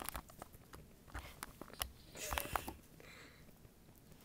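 Faint scattered small clicks and knocks, with a brief rustle about two seconds in.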